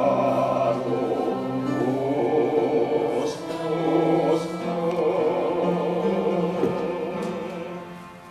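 A congregation of men and women singing a hymn together, with held notes; the singing tapers off near the end as the hymn finishes.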